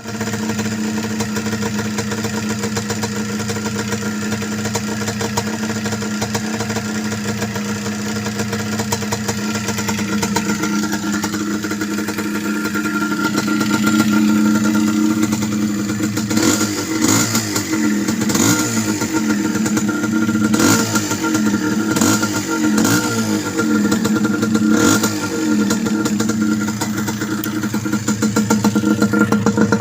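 Yamaha DT125's two-stroke single-cylinder engine idling steadily, then blipped with a series of short throttle revs, each rising and falling in pitch, from about halfway on.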